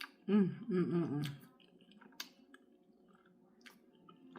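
A person eating, with a short hummed or murmured voice sound near the start, then soft wet mouth clicks now and then.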